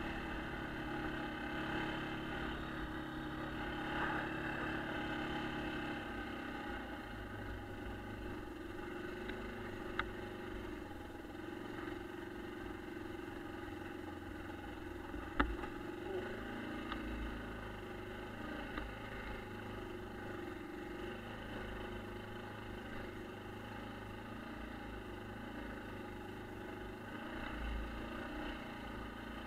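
1996 Yamaha Kodiak ATV's single-cylinder four-stroke engine running steadily, its pitch dropping about six seconds in. A few sharp knocks cut through, the loudest about fifteen seconds in.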